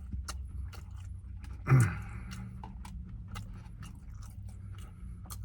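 A person chewing food in a car, with scattered small clicks and crackles over a low steady hum. A brief voiced sound comes about two seconds in.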